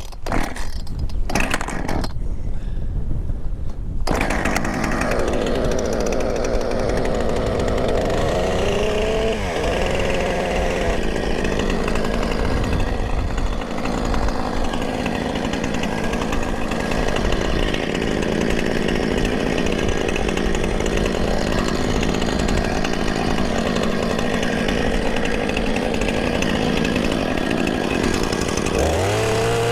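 Chainsaw running under load as it cuts a small tree, its pitch wavering as the chain bites, with heavy wind on the microphone. The saw starts cutting about four seconds in, after a few seconds of wind noise, and near the end its revs climb.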